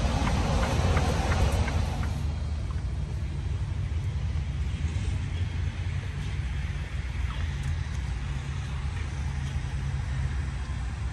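Semi truck's diesel engine running steadily, a low even drone.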